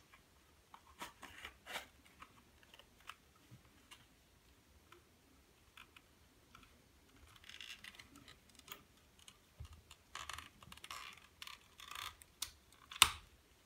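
Revolver being pushed into a stiff leather holster: scattered rubbing and scraping of leather on metal with small clicks, and one sharper click about a second before the end.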